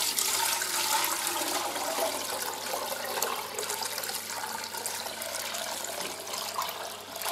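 Elderflower kvass poured in a steady stream from a stainless steel pot through a mesh sieve into an enamel pot, a continuous splashing of liquid as it is strained off the flowers after fermenting.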